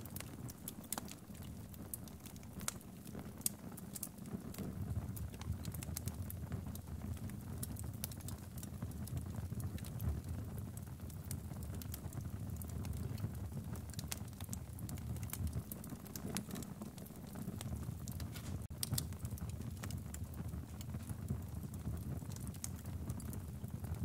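Wood logs burning in a fireplace, crackling with frequent irregular sharp pops and snaps over a steady low rumble.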